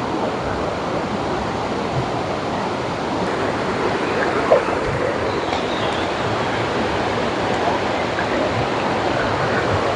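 Waterfall rushing steadily at close range, with one short pitched sound about four and a half seconds in.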